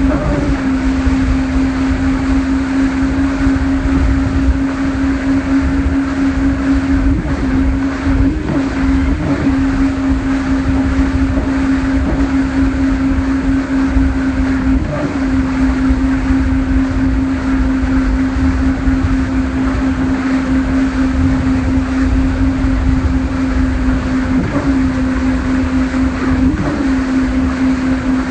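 Speedboat engine running at a steady speed while towing, a constant drone that dips briefly a few times, over the rush of wind on the microphone and churning wake water.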